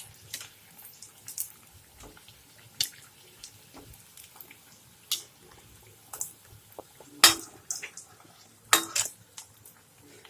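A utensil clinking and scraping against the frying pan at irregular moments as bread samosas are turned in hot oil, over a faint sizzle of frying. The loudest knocks come about seven and nine seconds in.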